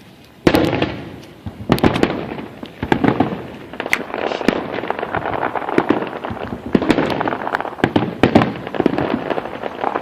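Fireworks display: aerial shells bursting, starting with a loud bang about half a second in. Then a near-continuous run of overlapping bangs and crackling follows.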